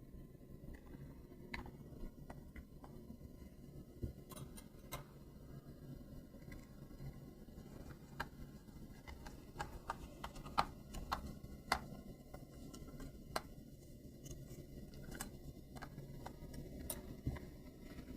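Scattered light clicks and taps of small objects being handled, over a faint low hum.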